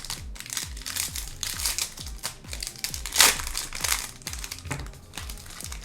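Foil trading-card pack wrappers crinkling as they are handled, with one sharper crackle about three seconds in, over background music with a steady beat.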